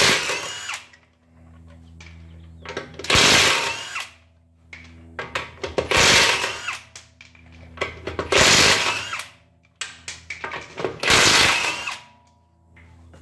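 Cordless impact wrench with a 19 mm socket hammering off a front wheel's lug nuts, in five short bursts about every two and a half to three seconds, one per nut. Small clicks between bursts.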